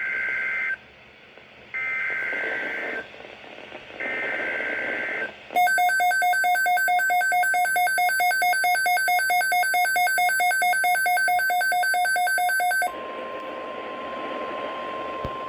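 Emergency Alert System severe thunderstorm watch coming in over NOAA Weather Radio. It opens with three short bursts of warbling SAME digital header data. Next comes a harsh electronic alarm beeping about four times a second for about seven seconds, and then the steady single-pitch warning alarm tone.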